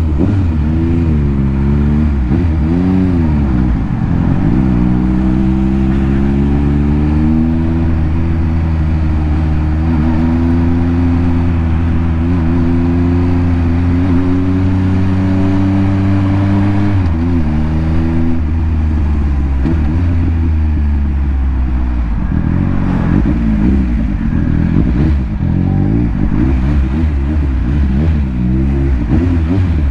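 Triumph Speed Triple RS three-cylinder engine through a Scorpion titanium exhaust while riding. The revs rise and fall several times at first, hold steady for about ten seconds in the middle, then rise and fall again from about two-thirds of the way through.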